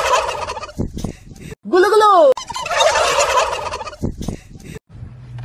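A flock of white domestic turkeys gobbling together in a loud chorus, twice, each burst coming right after a single rising-and-falling call.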